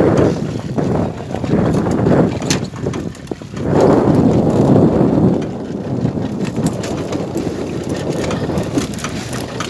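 Wind buffeting the microphone on a moving boat, over the rush of water and the boat's engine. It swells in gusts at the start and again about four seconds in, with scattered light clicks.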